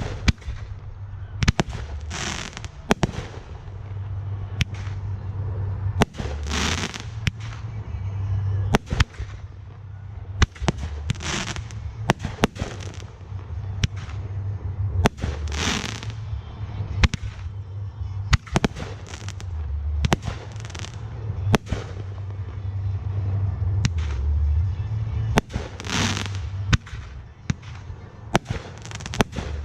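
Aerial fireworks display: a rapid string of sharp shell bursts and bangs, with a longer rushing burst every few seconds, over a steady low hum.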